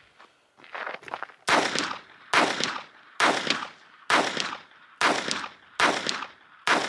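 Phoenix Arms HP22A .22 LR semi-automatic pistol firing Armscor rounds in a steady string, about seven shots a little under a second apart, each trailing off in a short echo. The pistol cycles every round without a jam or light strike.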